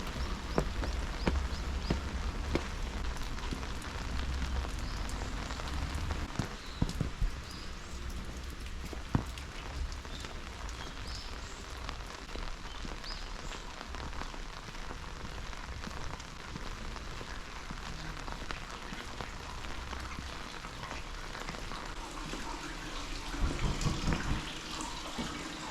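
Heavy rain falling, with scattered sharper drop impacts and a low rumble underneath that fades about two-thirds of the way through.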